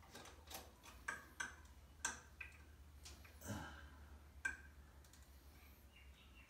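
Faint, irregular clicks and ticks of a bidet water-line adapter being screwed by hand onto the toilet cistern's water inlet, roughly half a dozen over a few seconds.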